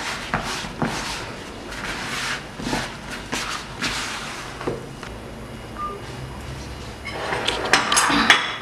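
Hands mixing and kneading wet mandazi dough in a plastic bowl, with a little flour being worked in: soft, irregular squishing and rubbing strokes, quieter in the middle and with a louder flurry near the end.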